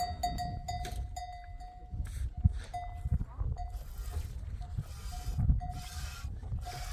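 A livestock bell ringing on and off with a steady clear note, over uneven low rustling or wind noise and a few sharp clicks.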